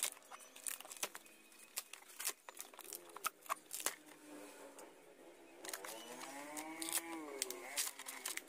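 Cracking, snapping and knocking as thin plywood mold pieces are pried loose and broken out of a fiberglass boat hull. From about five and a half seconds in comes a drawn-out call that rises and then falls in pitch.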